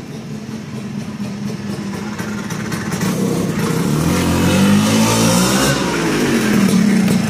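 Vespa PX200 scooter's two-stroke single-cylinder engine running as the scooter rides up, growing louder and loudest about five seconds in as it comes close, its pitch shifting there before settling back to a steady note.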